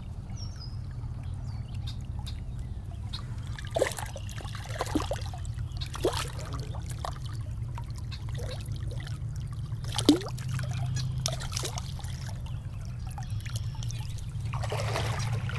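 Shallow creek water trickling and splashing around wading feet, with a few sharper splashes as steps land in the water.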